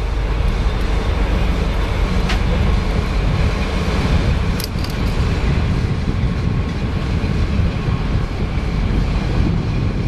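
Passenger train coaches rolling out of a station, heard from an open coach window: a steady, loud rumble of wheels on the rails, with a few sharp clicks about two and five seconds in.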